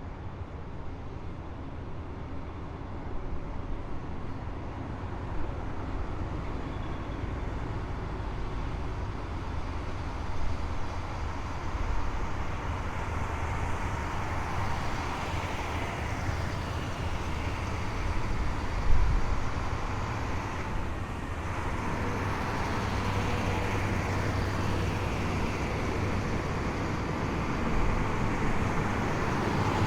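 Column of heavy military vehicles driving past, deep engine rumble growing slowly louder, with whines that fall in pitch as vehicles go by and a single sharp knock about two-thirds of the way through.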